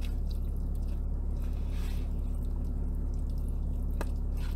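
Plastic spoon stirring and scooping saucy rice in a plastic takeaway bowl: soft wet squishing with a few light clicks, the sharpest about four seconds in, over a steady low hum.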